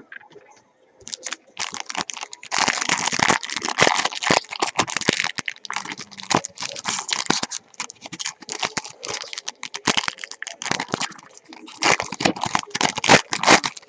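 Foil trading-card pack wrappers being torn open and crinkled, with cards handled, a long crackly rustle of many quick sharp clicks that eases off briefly around the middle.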